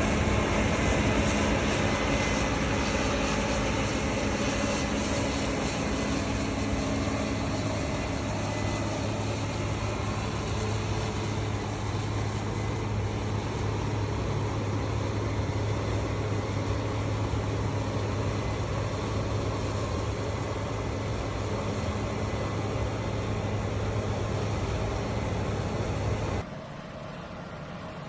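Combine harvester running steadily while harvesting wheat: a diesel engine hum over the whir of the threshing machinery. The sound drops abruptly near the end to a quieter engine hum.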